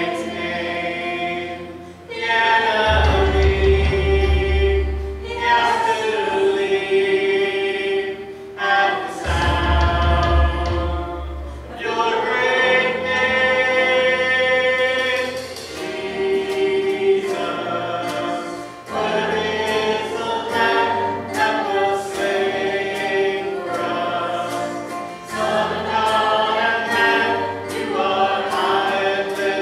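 Many voices singing a hymn together over instrumental accompaniment, with deep bass notes held under some phrases.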